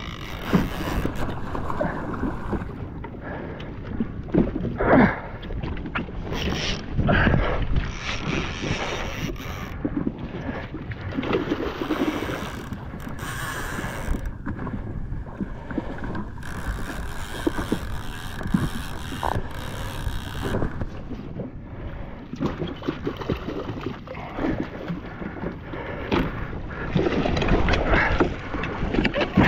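Water sloshing and splashing against a jet ski's hull, with wind buffeting the microphone and irregular knocks and splashes throughout, a little louder near the end.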